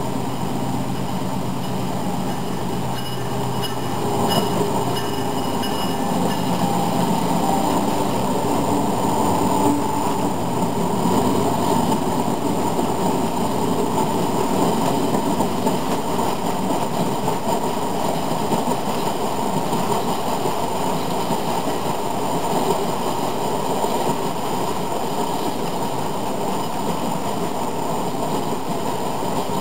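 HO-scale model coal train running past: a steady rumble of the hopper cars' wheels rolling on the model track, mixed with the sound of the locomotive's onboard sound system.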